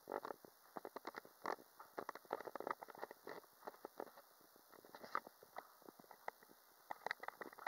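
Crackling and rattling from a camcorder microphone whose holes are plugged with adhesive, as the camera is moved. It comes as irregular clusters of sharp clicks, dense for the first few seconds, thinning out around the middle, and thick again near the end.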